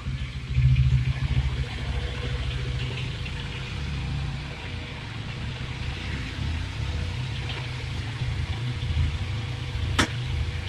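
Bajaj Dominar 400's single-cylinder engine running at low revs as the bike is ridden slowly and parked, with a brief rise in revs about half a second in. A sharp click comes near the end, and the engine stops right at the end.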